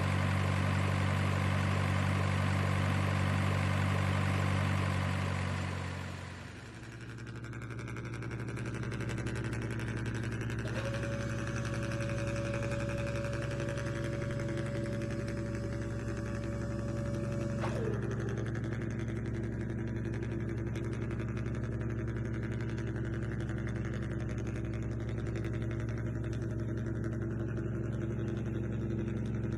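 Steady engine-like drone that fades about six seconds in and gives way to a lower, steadier drone. A single high steady tone is held for about seven seconds in the middle, then stops abruptly.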